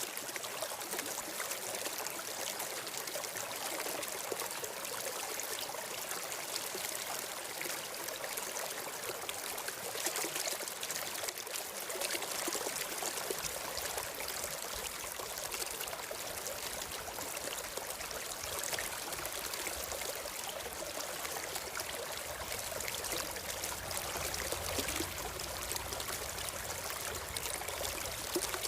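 Steady flowing water of a stream trickling, with a low rumble added from about halfway through.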